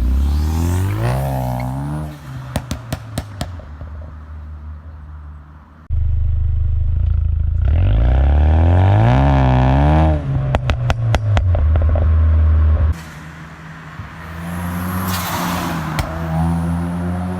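Mustang EcoBoost's turbocharged 2.3-litre four-cylinder with a COBB exhaust revving up and letting off several times. Each time the revs fall, the exhaust gives a quick string of sharp pops and crackles from its Stratified pop-and-crackle tune.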